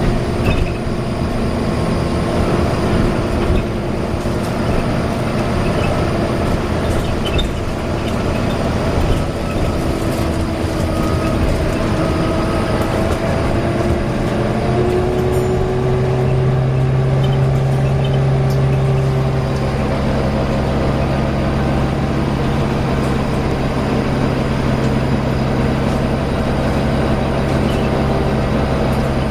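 Volvo B9TL double-decker bus running, with a loud whine over the engine that rises in pitch partway through. A strong steady low hum sets in around halfway and holds.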